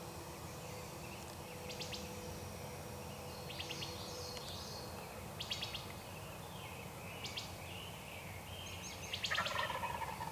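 Songbirds singing short, high trilling phrases every second or two over steady outdoor background noise. About nine seconds in, a louder, lower call sounds, the loudest thing here.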